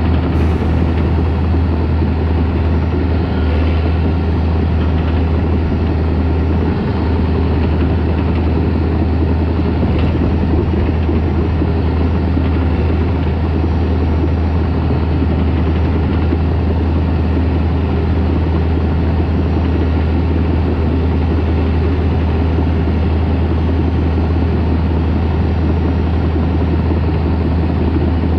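Caterpillar D4 crawler tractor's diesel engine running steadily with a deep drone.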